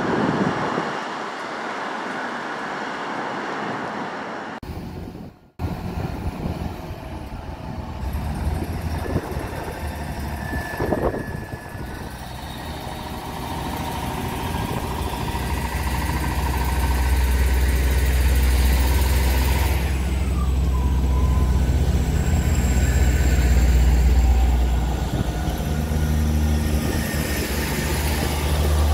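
Class 158 diesel multiple unit: first the noise of it approaching along the track, then, after a sudden cut, its underfloor diesel engines running close by, with a low rumble that grows louder as it pulls away under power.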